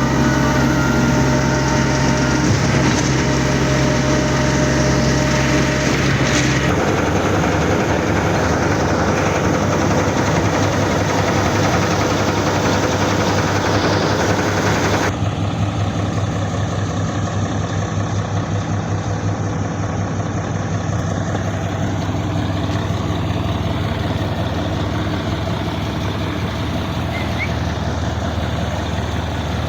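Diesel engine of a truck-mounted concrete boom pump running steadily while pumping concrete, a continuous engine drone. Its note changes about seven seconds in, and the sound turns duller about halfway through.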